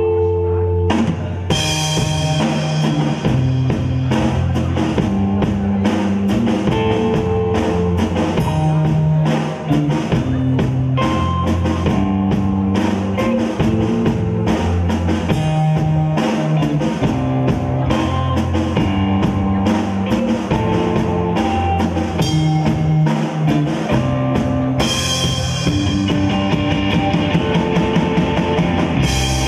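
Rock band playing live: electric guitar, electric bass and drum kit, with the drums and cymbals coming in about a second in and keeping a steady beat.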